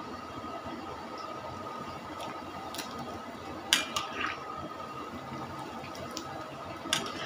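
Chicken pieces deep-frying in a wok of hot oil: a steady sizzle and bubbling, with a few sharp clacks of a metal strainer against the pan, the loudest about three and a half seconds in and another near the end.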